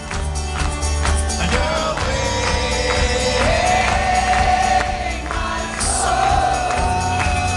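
Live folk-rock band playing a loud passage: a steady kick drum beat and repeated strummed or struck hits, with voices holding long sung notes over them.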